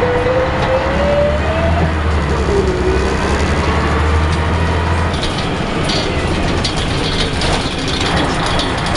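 Scania L113CRL bus's rear-mounted 11-litre six-cylinder diesel pulling through town, heard from inside the saloon: a whine that climbs and then drops back about two seconds in, over a deep drone. From about six seconds in, the body's panels and fittings rattle.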